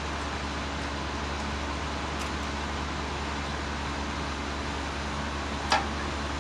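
Titan industrial generator's engine running steadily, with one short click near the end.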